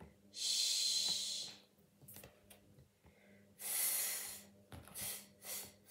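A woman's voice making a long hushing 'shhh' sound, then, about three and a half seconds in, a second drawn-out breathy 'th' sound, with a few faint clicks between.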